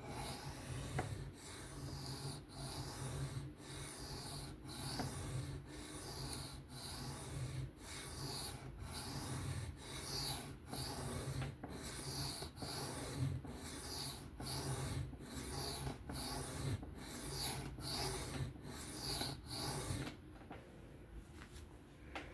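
Knife blade scraped along a sharpening stone in steady back-and-forth passes, about one stroke a second and getting slightly quicker. The strokes stop near the end.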